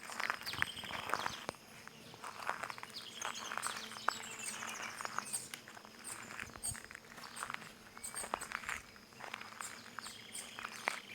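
Footsteps over stones and plants, heard as irregular short sharp clicks. Birds sing and chirp around them, with quick high trills near the middle.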